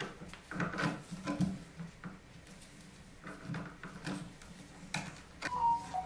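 Vinyl electrical tape being pulled off the roll and wrapped around wire nuts: irregular short crackles and rustles of tape and handling, with a brief thin squeak near the end.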